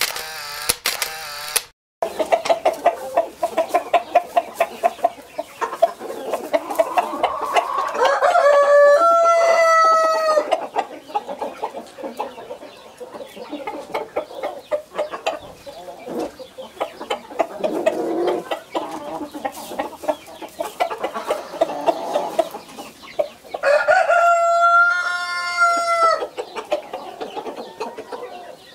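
Blue Australorp chickens clucking steadily, with a rooster crowing twice, each crow lasting about two seconds. A short intro sound plays in the first two seconds.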